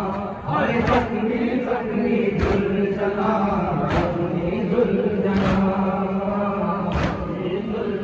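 Crowd of men chanting a noha, a Shia mourning lament, in unison, with a sharp slap about every second and a half keeping time.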